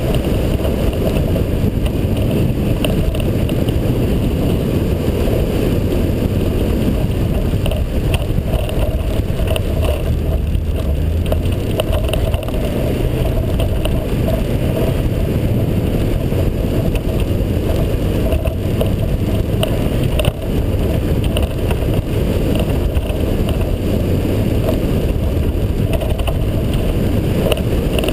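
Mazda Miata's four-cylinder engine running hard with the tyres churning through packed snow, heard as a loud, continuous, muffled rumble.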